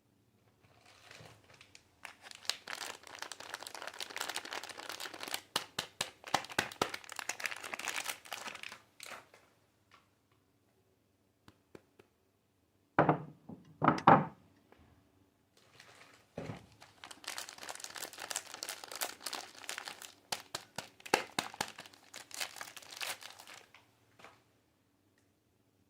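Soap bar wrappers being crinkled and torn open in two long stretches, with a few sharp knocks near the middle.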